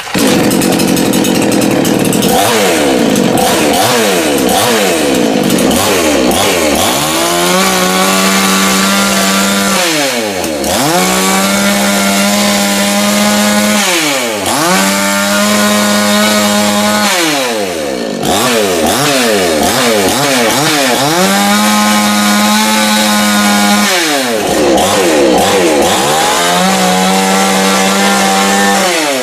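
Chainsaw engine revved over and over: the throttle is opened to a high, steady scream, held for two or three seconds, then released so the pitch sweeps down before climbing again, about once every four seconds.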